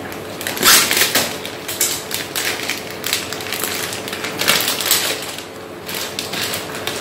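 Thin clear plastic produce bag crinkling and rustling in irregular bursts as it is cut and pulled open by hand, with the loudest crackles about a second in and again around five seconds.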